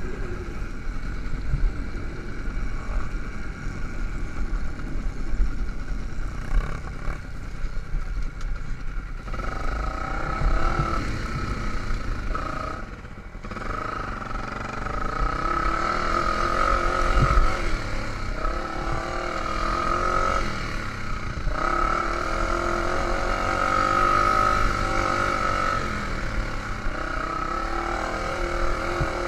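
Dirt bike engine running at varying throttle over a steady low rumble, its pitch wavering up and down. The engine note comes through more clearly about ten seconds in.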